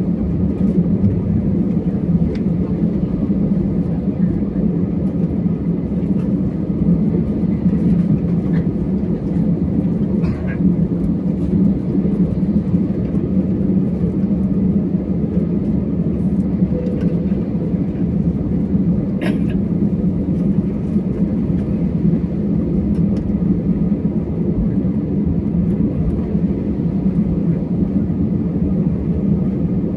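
Steady cabin drone of an Airbus A320 taxiing on the ground, heard from a window seat: engine and air-system noise with low rumble, the level holding even. A couple of faint clicks come near the middle.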